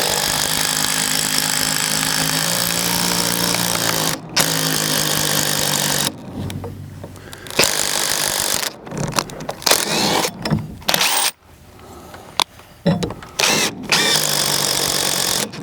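Power drill-driver driving a 3.5-inch lag bolt into a wooden door frame. It runs steadily for about six seconds with a brief pause about four seconds in, then works in a series of short bursts. The owner thinks the bolt struck a screw running through the door.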